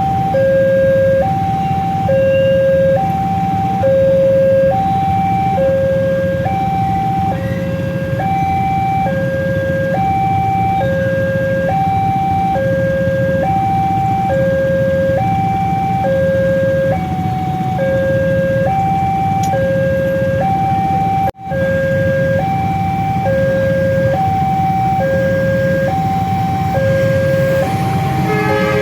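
Railway level-crossing warning siren, an electronic two-tone alarm alternating steadily between a low and a higher tone about once a second, sounding slightly hoarse, over a steady low rumble. It cuts out for an instant about 21 seconds in.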